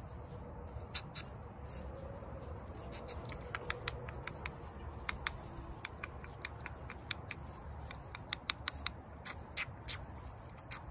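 Chihuahua puppies play-fighting in grass, giving many tiny, sharp high squeaks and ticks, several a second, thickest through the middle and latter part.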